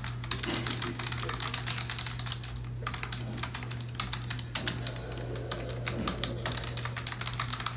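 Typing on a computer keyboard: rapid, irregular keystrokes with a brief pause about a third of the way in, over a steady low hum.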